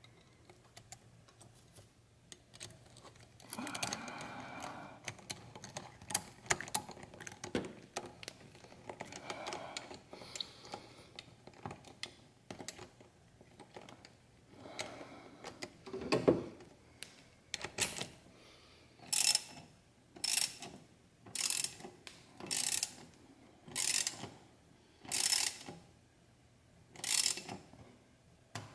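Hand socket ratchet on an extension tightening a fastener in the engine bay. There are scattered clicks and light knocks at first, then a run of ratcheting strokes a little over a second apart in the second half.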